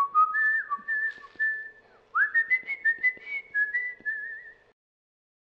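A person whistling a tune with the lips in two phrases, with a brief break about two seconds in. It cuts off about four and a half seconds in.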